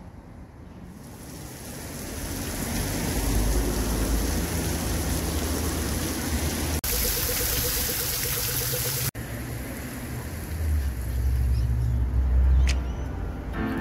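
Outdoor city-street ambience: a steady rush of noise, with a low rumble that swells near the end. The sound changes abruptly twice where the shots are cut together, and the middle stretch is brighter and hissier.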